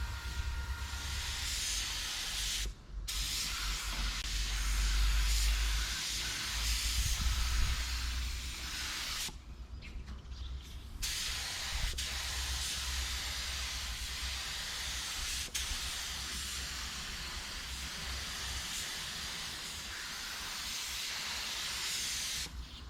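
Paint spray gun hissing as it sprays thinned black paint, with the trigger let off briefly about three seconds in and again for a second or two near the ten-second mark. A low rumble runs under the hiss for the first eight seconds or so.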